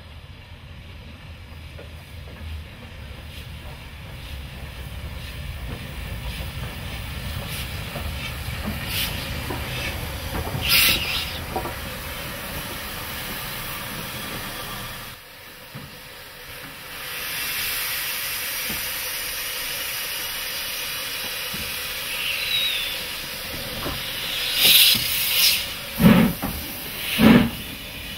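Somerset & Dorset 7F 2-8-0 steam locomotive: a low rumble builds as the train draws in, then there is a steady hiss of steam while it stands. It then starts away with loud exhaust chuffs, about one a second, and its open cylinder drain cocks blowing steam.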